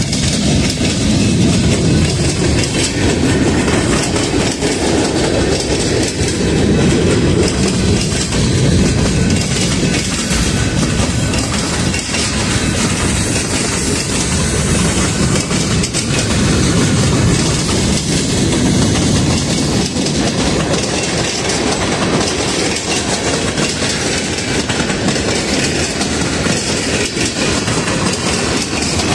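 Freight train boxcars and tank cars rolling past close by: a steady rumble of steel wheels on rail with rapid, irregular clicking as the wheels cross rail joints.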